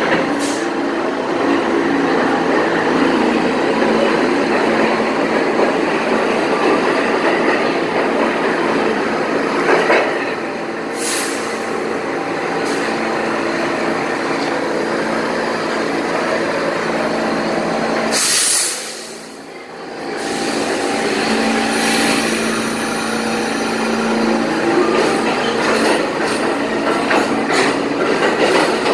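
New York City subway trains running through an underground station: a steady loud rumble of wheels on rail and motor hum. It eases off briefly about two-thirds of the way through, then another train passes with wheel clatter near the end.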